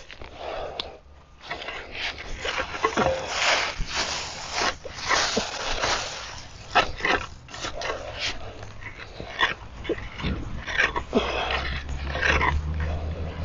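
A hand cultivator scraping and pulling compost and dry leaves out from the bottom of a wooden compost bin, in quick, irregular rustling strokes, with a low rumble near the end.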